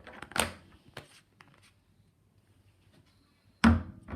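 Slime being handled by hand: a few short sticky clicks and pops, the loudest near the end.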